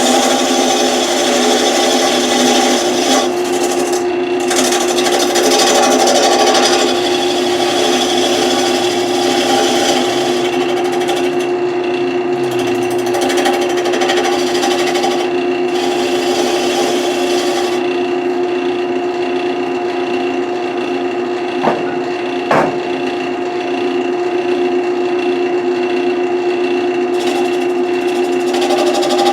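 Wood lathe running with a steady motor hum while a turning tool cuts into the spinning wood, a continuous rough scraping. Two short sharp knocks sound close together about two-thirds of the way through.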